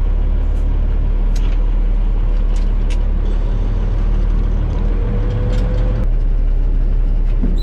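Truck engine running steadily under load, heard from inside the cab, with a few light clicks and rattles.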